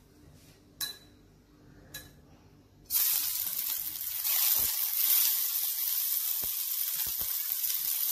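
Chopped cabbage and capsicum hitting hot oil in a steel wok: a sudden loud sizzle starts about three seconds in and keeps going as the vegetables fry. Before it, two light clinks.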